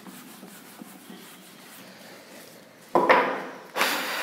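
Two loud rubbing strokes against a classroom board, one about three seconds in and another near the end, over faint room noise.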